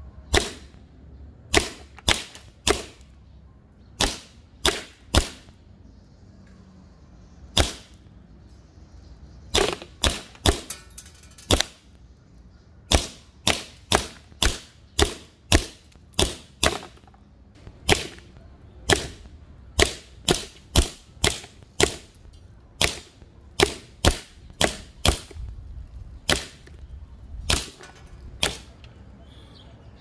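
Army Armament R18 Glock 18C replica, a green gas blowback airsoft pistol, firing shot after shot. Each shot is a sharp crack, mostly single shots about half a second to a second apart, with a quick run of shots a little after ten seconds in; the firing stops shortly before the end.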